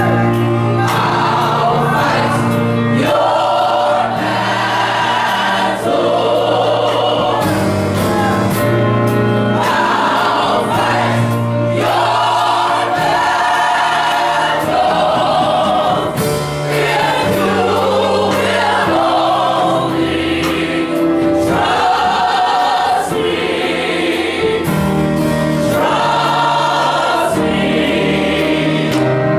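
Gospel choir singing with keyboard accompaniment and percussion, held bass notes under the voices and a steady run of drum hits.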